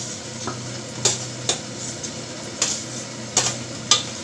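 A metal spoon scrapes and clinks against a steel bowl as fried potato pieces are tipped into a pressure cooker. About half a dozen sharp clinks sound over a faint, steady sizzle from the masala in the cooker.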